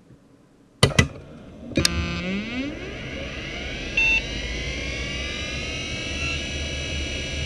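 A computer is switched on with two sharp clicks about a second in and another just before two seconds. Then the Conner CP3360 4500 rpm hard drive spins up, a whine rising in pitch over several seconds above a steady low hum, with a short beep about four seconds in.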